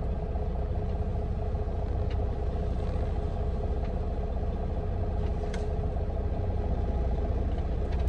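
Semi truck's diesel engine idling, a steady low rumble heard from inside the cab, with a steady hum over it and a few faint clicks.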